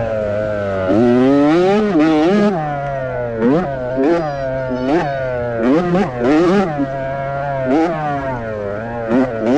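Youth motocross bike engine revving hard and rising and dropping in pitch about nine times as the throttle is opened and chopped on the race track.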